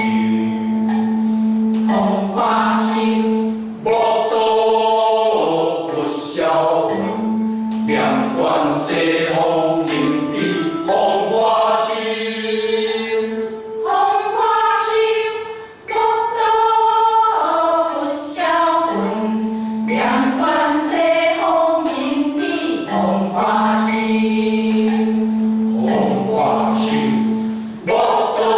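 Mixed choir of men and women chanting a classical Chinese ci poem in Hokkien (Taiwanese) ancient-tone style, in slow phrases with long held notes. There is a brief breath break about sixteen seconds in.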